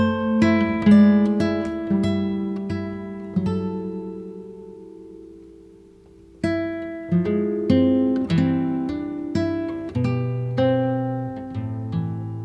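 Background music on acoustic guitar, single plucked notes ringing and fading. The playing thins to a lull about six seconds in, then picks up again with low bass notes toward the end.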